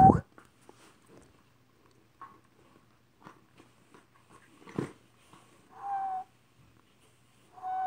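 Three short, high-pitched vocal cries, one at the start, one about six seconds in and one near the end, with a single knock a little before the five-second mark.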